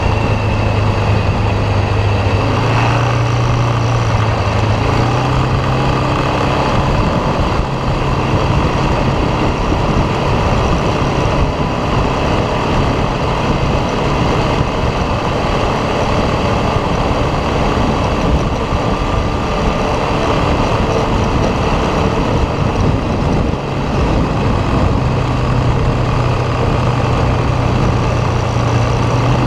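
ATV engine running under way, with a steady rushing noise over it. The engine note steps up a few times in the first few seconds, is buried by the rush through the middle, and comes back clearly near the end.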